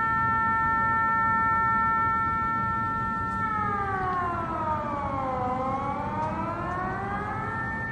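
Air-raid warning siren sounding a loud steady tone. About three and a half seconds in, its pitch falls for about two seconds, then rises back to the steady tone. The siren is warning of an incoming missile attack.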